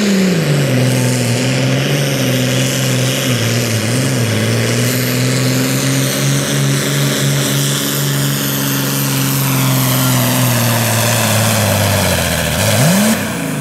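Super Farm class pulling tractor's turbocharged diesel engine at full throttle dragging the sled down the track. The engine note drops as the load comes on, then holds and slowly sags. Near the end there is a quick rev before the note falls away.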